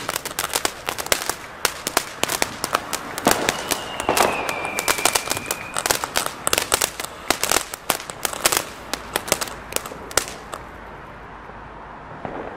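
A ground fountain firework sprays sparks with a hiss, under a rapid string of sharp firecracker bangs and crackles that thin out and stop about ten seconds in. A high whistle, falling slightly, sounds for about two seconds around four seconds in.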